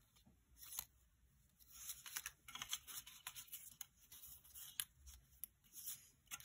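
Faint rustling and light taps of sheets of cardstock paper being handled and leafed through, in scattered short bursts.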